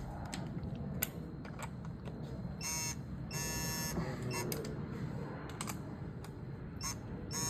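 Ratchet clicks as the engine's head studs are tightened, with short electronic buzzing beeps: two about three seconds in and one near the end, the kind a digital torque wrench gives on reaching its set torque.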